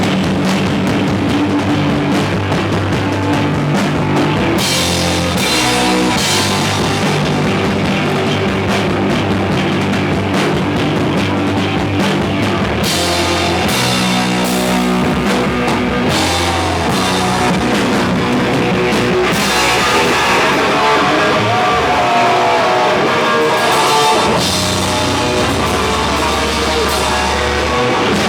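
Hardcore punk band playing live: distorted electric guitars, bass and a pounding drum kit, steady and loud throughout.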